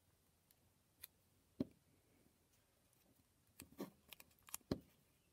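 Sticker being peeled off its backing and pressed onto a paper poster: a few faint, scattered clicks and crinkles of paper handling, a single one about a second and a half in and a quick cluster near the end, over near silence.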